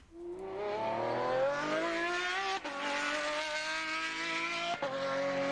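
Race car engine accelerating hard, its pitch climbing through the revs and dropping sharply at two upshifts, about two and a half and about five seconds in.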